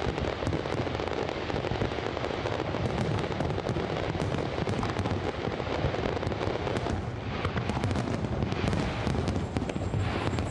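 Aerial fireworks display going off in a steady barrage of low booms, with many sharp crackling pops.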